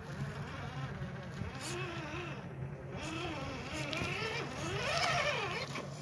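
Axial SCX10 II Deadbolt RC crawler's electric motor and geared drivetrain whining as it crawls over rocks. The pitch rises and falls with the throttle and is loudest about five seconds in.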